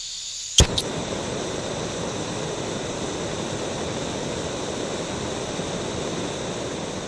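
An intro sound effect over a title card: a sharp crack with a quicker second one just after, then a steady rushing noise.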